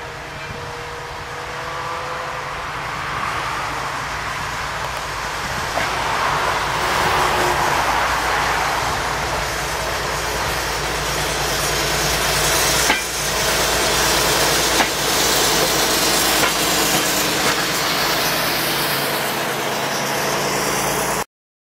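A train running along the rails with a steady low hum, growing louder over the first half as it comes closer. There are a couple of sharp knocks around the middle, and the sound cuts off abruptly near the end.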